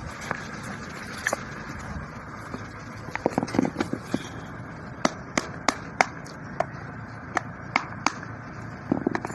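Hand tools knocking and clicking on a motor's metal housing while it is being taken apart: a quick cluster of knocks a few seconds in, then single sharp taps at uneven intervals.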